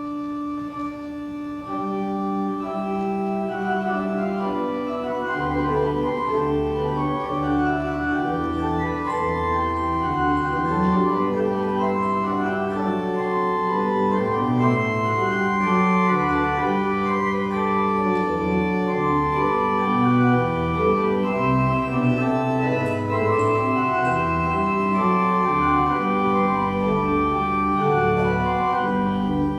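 Organ playing slow, sustained chords, starting right at the beginning and swelling a little louder over the first few seconds.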